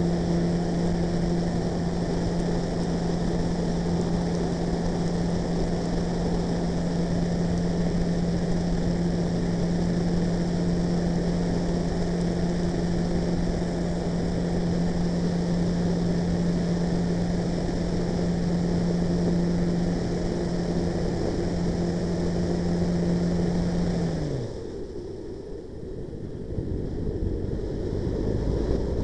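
Engine and 26x15 propeller of a large radio-controlled Pilatus PC-6 Porter model running steadily at one pitch while towing. About 24 seconds in the engine note falls away sharply, as if throttled back, leaving a quieter rushing noise that swells again near the end.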